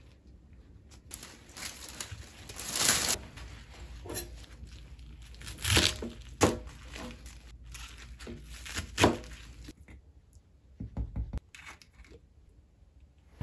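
Hands pulling shimeji mushroom clumps apart with a soft tearing rustle, then a kitchen knife chopping leafy greens on a cutting board in a few crisp strokes. Near the end, a short run of soft low knocks.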